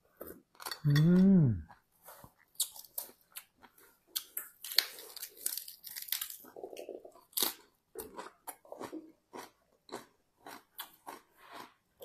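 A person chewing a mouthful of spicy seafood papaya salad with squid and shrimp, with wet smacking and crunchy clicks throughout. About a second in there is a short, loud hummed "mmm" that rises and falls.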